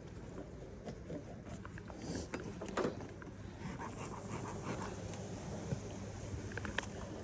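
Heavy breathing close to the microphone, with scattered small clicks and knocks.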